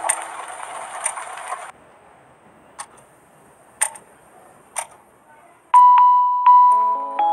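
Lo-fi background music: a beat with a crackly texture stops under two seconds in, leaving a few faint ticks about a second apart, then a bell-like mallet melody starts near the end.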